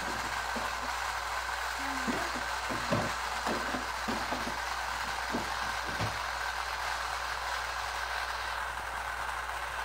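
Light, irregular knocks and clatter of plastic toy-kitchen pieces being handled, over a steady background hum and hiss. The knocks thin out after about six seconds.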